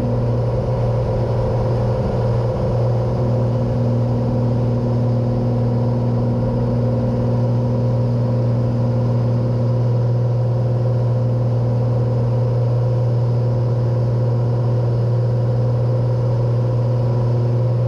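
Cessna 182's six-cylinder piston engine and propeller running steadily at climb power just after takeoff, heard inside the cabin as a constant low hum with a few steady higher tones above it.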